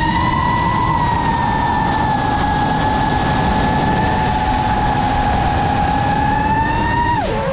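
GEPRC Mark5 FPV quadcopter's brushless motors and propellers whining at a steady throttle, with air rushing past; about seven seconds in the pitch drops sharply as the throttle is cut.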